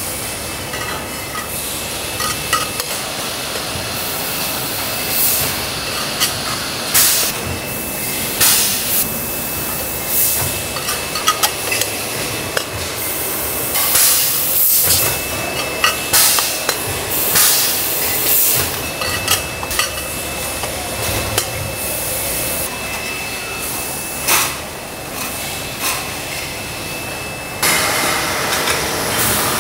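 Metal water-bottle factory machinery: a steady hiss and hum broken by frequent sharp metallic clicks and clanks. A thin steady high whine runs through most of it and stops a couple of seconds before the end, when the noise gets louder.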